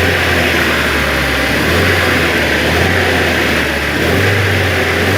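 Freshly rebuilt car engine running steadily, its speed rising slightly twice; the owner says it runs like clockwork.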